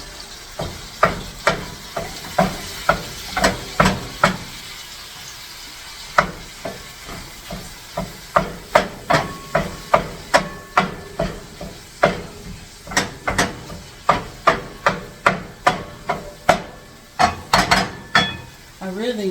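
A long run of sharp knocks and clinks in a kitchen, about two a second, some with a brief ringing tone, over a faint steady hiss.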